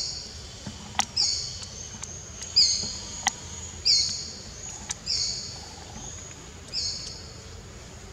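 A bird calling over and over in the forest: about six short, high-pitched calls, each falling slightly in pitch, with a couple of sharp clicks in between.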